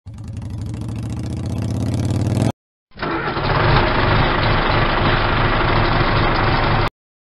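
Engine sound effects: a quad bike engine revving up, its pitch rising slowly for about two and a half seconds before cutting off abruptly. After a short gap, a tractor engine runs with a rough, low chugging until it too cuts off abruptly.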